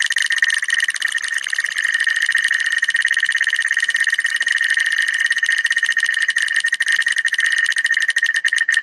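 Online spinning name wheel's ticking sound effect: a fast stream of clicks that slows near the end as the wheel winds down.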